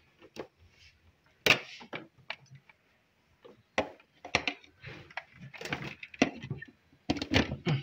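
Handling noise of electrical wires and connectors being joined and moved on a tabletop: scattered clicks, knocks and rustles. The loudest is a sharp knock about one and a half seconds in, with a cluster of knocks near the end.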